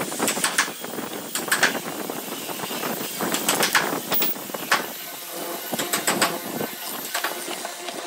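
Irregular wooden knocks, clicks and scrapes as a pine board is slid along and repositioned in the cross-slide vise of a benchtop hollow-chisel mortiser.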